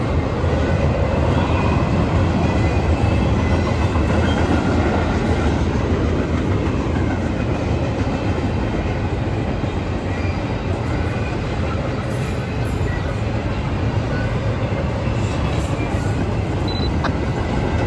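Train passing on the tracks: a steady, loud run of rolling railcar noise that holds evenly without a break.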